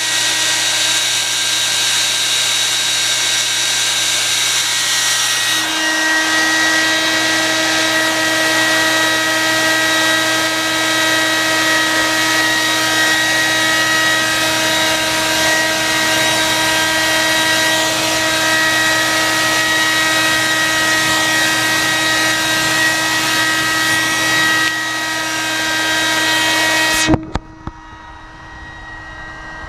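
Hair dryer running steadily, its tone changing slightly about five seconds in, then switched off abruptly near the end.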